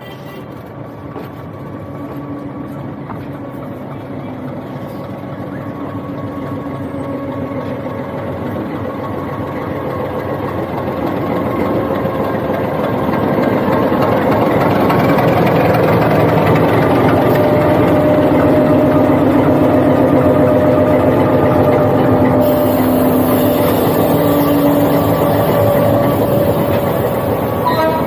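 Diesel locomotive engine running with a steady hum, growing louder over the first half and then holding level, as the locomotive takes over the train for the climb above Coonoor.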